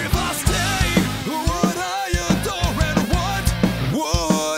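Punk-leaning rock song playing back from a raw, barely mixed multitrack session: a sung lead vocal over drums, bass and electric guitars.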